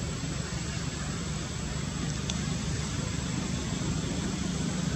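Steady background noise with a low rumble and a thin, steady high whine, and one faint tick about two seconds in.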